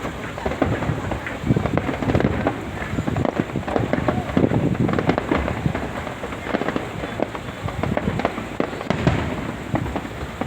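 Fireworks going off in a continuous barrage of overlapping bangs and crackles.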